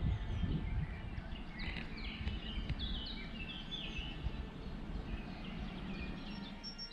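Several small songbirds chirping and singing in quick short phrases, over a low rumble that fades away over the first few seconds.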